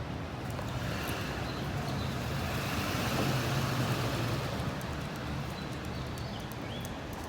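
A road vehicle passing by. Its tyre and engine noise swells to a peak about three and a half seconds in, then fades away.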